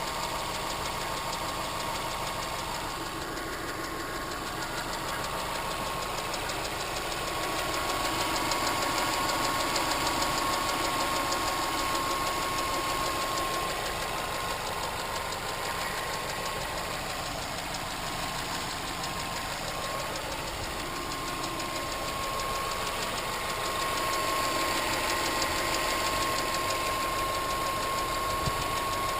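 2006 Subaru Impreza WRX's EJ255 turbocharged 2.5-litre flat-four running steadily, with a fast, even ticking/clicking from the driver's side of the engine and a thin steady whine beneath it. The owner later traced the tick to a bent intake valve that was not closing properly.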